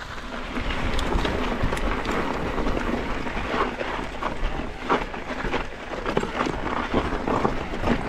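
Mountain bike riding down a rough dirt trail: tyres rolling and crunching over dirt and rocks, with frequent knocks and rattles from the bike over bumps and wind rushing on the microphone.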